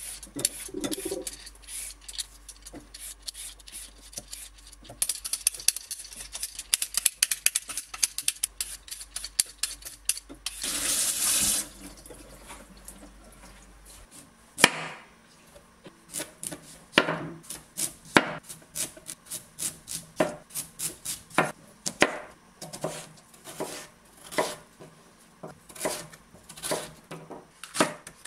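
Kitchen prep sounds: small clicks and clatter of utensils and dishes, a tap running briefly near the middle, then a steady series of knife knocks on a cutting board, about one or two a second.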